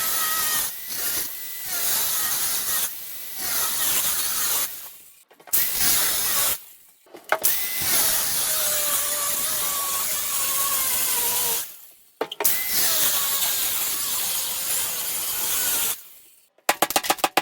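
Handheld power tool cutting in several long bursts, separated by short pauses. Its motor pitch sags under load during each cut, over a harsh cutting hiss.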